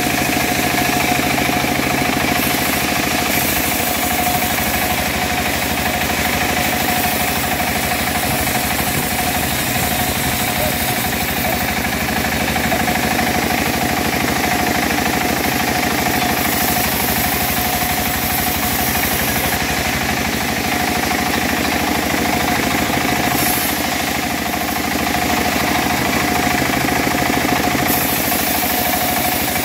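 Home-built bandsaw mill running steadily under power while its blade saws lengthwise through a teak log, with a constant machine drone and a high hiss that comes and goes.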